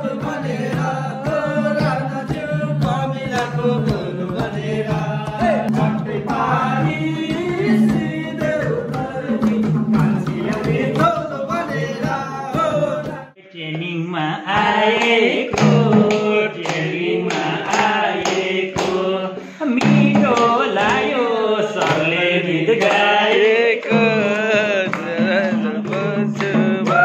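A group of men singing a Nepali folk song together, with hand claps keeping the beat, and a brief break about halfway through.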